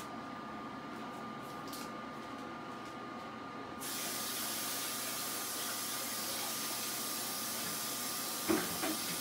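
A steady hiss starts abruptly about four seconds in and carries on over a faint steady hum. Two short knocks come shortly before the end.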